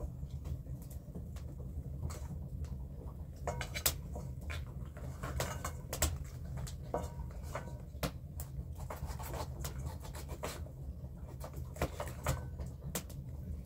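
Irregular light clicks and knocks, a few a second, like small objects being handled, over a steady low hum.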